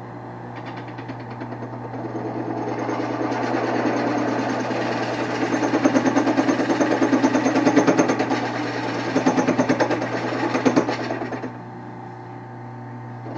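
Wood lathe running with a steady hum while a turning tool cuts the spinning Osage orange blank, giving a fast, rhythmic chatter that swells and fades. The cutting stops near the end, leaving the lathe's hum.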